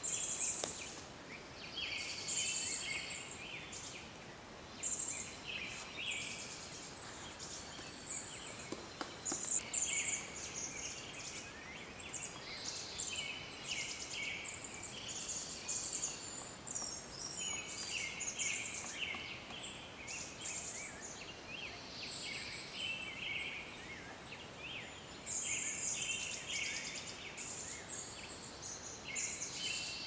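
Small birds chirping and trilling in a busy chorus, short high-pitched phrases following one another every second or two.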